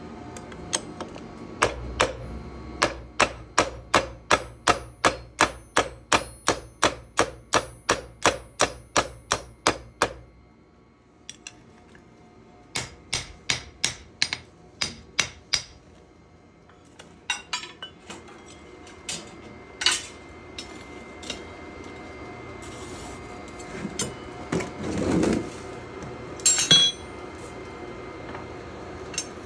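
Hammer blows on hot steel being forged into a knife blade. A fast, even run of about three blows a second lasts some eight seconds over a low steady hum. After a pause there is a shorter run of strikes, then scattered single hits and a louder metallic clank near the end.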